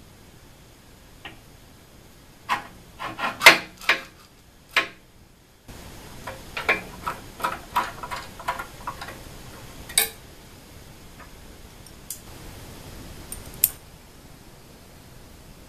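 Irregular metallic clicks and clinks from hand-fitting the aluminium Z-axis assembly of a CNC router, as parts, screws and a hex key are handled. The clicks come in an uneven cluster a few seconds in and another run in the middle, with one sharp clink after that.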